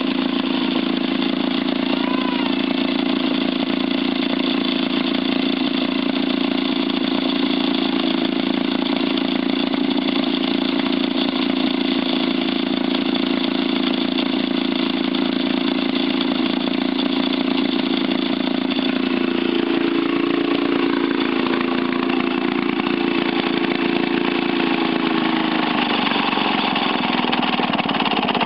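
Vintage twin-cylinder Maytag two-stroke engine running steadily. Its pitch sags lower near the end.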